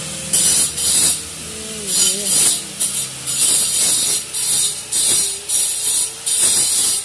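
Handheld electric grinder abrading a brick pillar in a dozen or so short, harsh bursts as it is pressed on and eased off, its motor whine wavering and dipping under the load.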